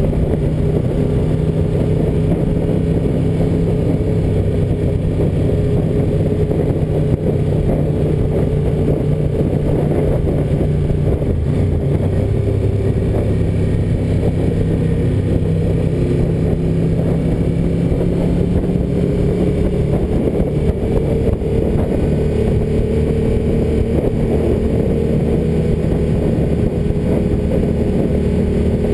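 Ducati 900SS FE's air-cooled V-twin engine running steadily at cruising revs on the move. Its pitch eases off about twelve seconds in and climbs gradually again in the last third.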